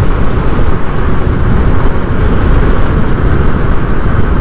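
Wind buffeting and road noise on a helmet-mounted microphone while riding a motorcycle: a loud, steady, low rush that flickers rapidly in level.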